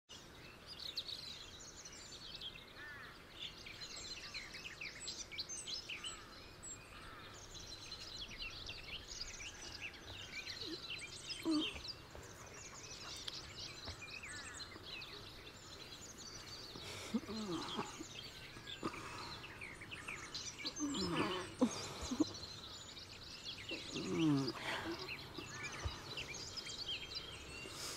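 Morning birdsong: many birds chirping and twittering together, with a few louder, lower sliding sounds breaking in from about eleven seconds on.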